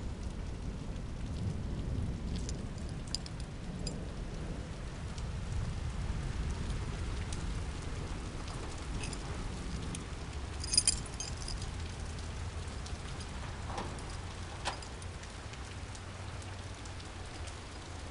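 Steady rain falling after a heavy storm, with scattered light ticks. A brief high metallic clink comes about eleven seconds in.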